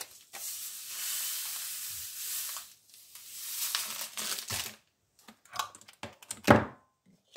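Poppy seeds poured into an electric coffee grinder's bowl: a steady hiss for about two seconds, then a second shorter pour. Light handling clicks follow, with one sharp knock near the end.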